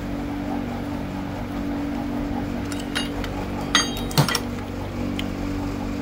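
A few sharp metallic clinks, in a cluster about three to four seconds in and once more near the end, from handling wires and metal parts at the alternator, over a steady hum.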